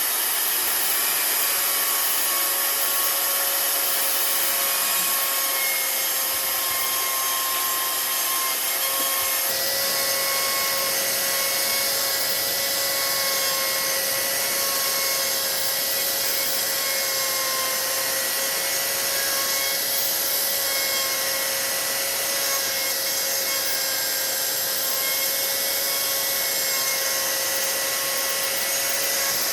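A high-speed electric power tool whining steadily as it grinds or sands wood, with a gritty rasping under the whine that gets fuller about nine seconds in.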